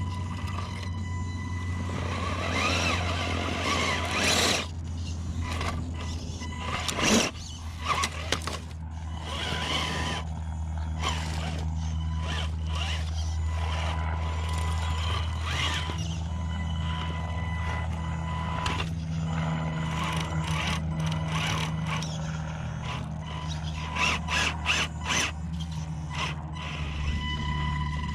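Electric scale RC crawler running: a steady motor and gear whine, with scattered scrapes and knocks from the tyres and chassis working over the terrain.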